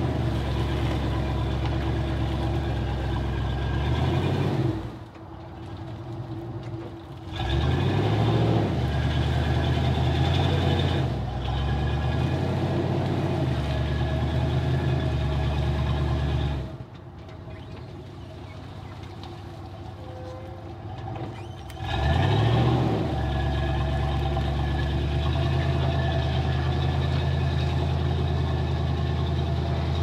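A truck engine running hard, dropping back to idle twice and revving up again each time.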